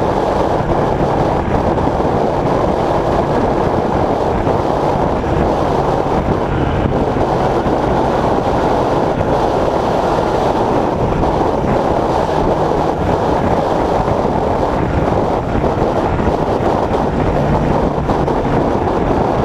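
Late Model Stock race car's V8 engine with wind and road noise, heard from inside the cockpit as a steady, loud drone.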